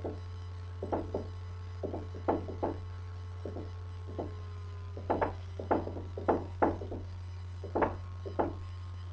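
Dry-erase marker writing on a whiteboard: short strokes and taps in irregular clusters, busier and louder from about five seconds in. A steady low hum runs underneath.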